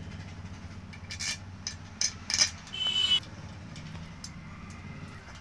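Steel bolts clinking against each other and the aluminium head cover of a Bajaj Maxima Z auto-rickshaw engine as they are set in place: a few sharp metallic clicks a little over a second in and again about two seconds in, with a brief high squeak just after. A low steady hum runs underneath.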